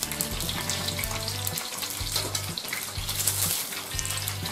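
Meat-filled dough pies frying in hot oil in a skillet: a steady sizzle full of fine crackling, with the occasional light click of forks against the pies and pan as they are turned.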